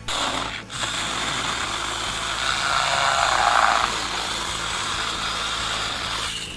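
Saker mini battery-powered electric chainsaw running and cutting through a bundle of thin branches. It starts at once, dips briefly just under a second in, runs louder in the middle while cutting, and stops just before the end.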